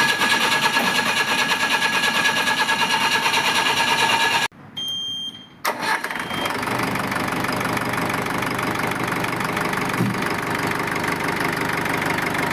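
Jeep diesel engine running steadily after its fuel injection pump has been fixed. The sound cuts off abruptly about four seconds in, and the engine is heard running again about two seconds later.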